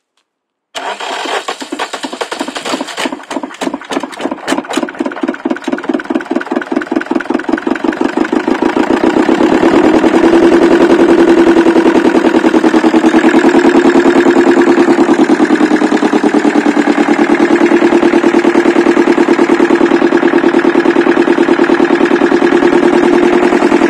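Twin-cylinder Arona/Lombardini marine diesel starting about a second in. It begins with distinct, uneven firing pulses that quicken and grow louder over the next several seconds, then it runs steadily with a loud diesel clatter.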